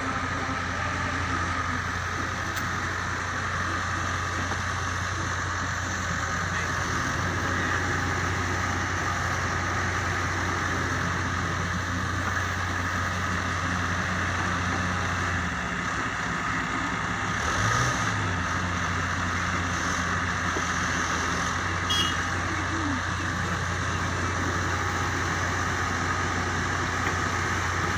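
Excavator's diesel engine running steadily under work. Its note dips about halfway through and briefly rises again, and there is a single sharp click a little later.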